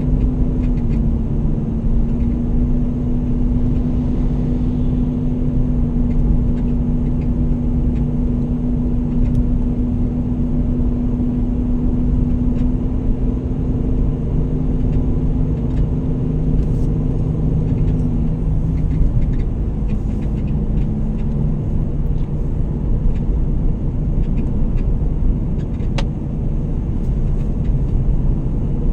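Motor vehicle under way at a steady speed: a constant low rumble of engine and road noise, the engine's hum shifting slightly in pitch about two-thirds of the way through.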